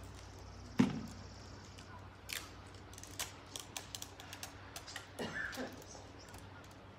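Small, irregular clicks and crackles of plastic as prepackaged communion cups are handled and peeled open, with one louder knock about a second in.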